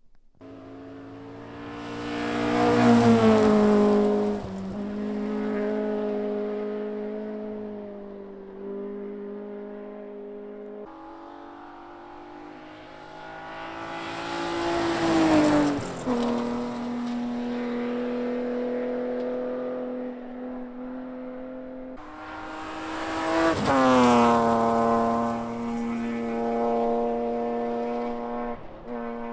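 Three rally cars race past one after another. Each engine note gets louder, drops in pitch as the car goes by, then holds steadier as it pulls away.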